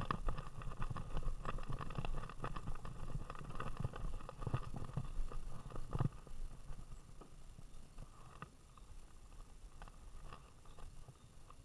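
Handling noise from an action camera strapped to a greyhound's vest: irregular clicks, knocks and rubbing as the mount jostles while the dog walks. There is one sharp knock about six seconds in, and after that the noise thins out and grows quieter as the dog stands still.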